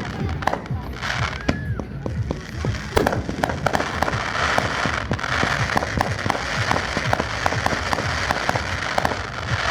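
Fireworks display: a rapid string of sharp bangs and pops, with dense crackling from about four seconds in until near the end.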